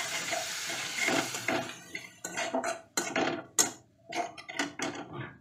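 Water splashed into the hot frying masala in a metal kadai sizzles for about two seconds, then a metal spatula scrapes and stirs against the pan in a quick series of short strokes as the masala is fried down.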